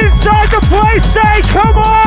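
Loud hard trance dance music from a club sound system. A steady kick drum runs under a held lead line that slides up and down in pitch.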